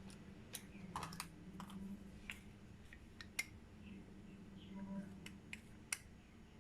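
About a dozen light, irregular clicks and taps from small painting supplies being handled: plastic cups, paint bottles and a wooden stir stick. The two loudest come about halfway through and near the end, over a low steady hum.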